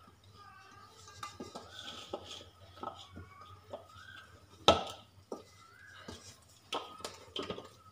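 Stainless-steel bowl clinking and knocking as soft, oiled maida dough is worked and lifted in it by hand, in irregular taps with one louder clank just under five seconds in.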